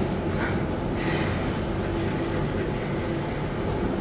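Otis Elevonic 401 traction elevator car travelling between floors: a steady rumble of the ride with a low hum.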